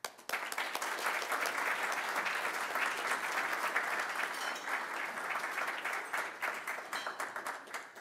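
Audience applauding, a dense steady clapping that starts suddenly and dies away near the end.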